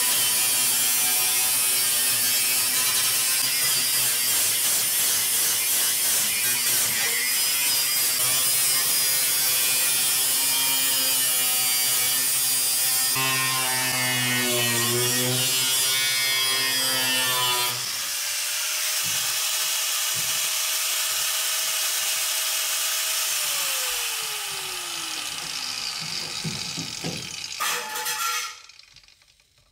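Corded angle grinder cutting through the sheet-steel trunk floor, its motor whine wavering under load. Late on, the cutting stops and the whine falls in pitch as the grinder winds down.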